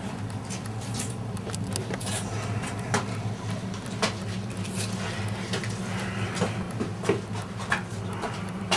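Scattered small clicks and knocks of handling, a few at a time, over a steady low hum.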